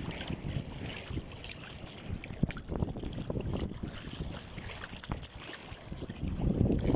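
Wind buffeting the microphone over sea water splashing, with a few light knocks.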